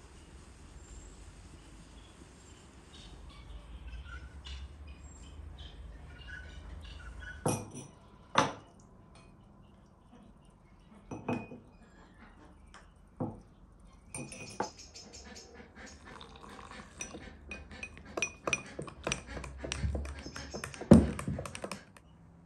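A metal spoon clinking and tapping against a small bowl and a glass: a few separate clinks, then a quick run of taps, with the loudest knock near the end. Before that, a low steady rumble.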